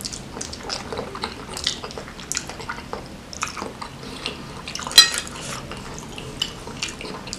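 Close-up wet eating sounds: chewing and mouth smacks while eating curry-soaked rice by hand, with small clicks of bamboo satay skewers against a ceramic plate, the sharpest click about five seconds in.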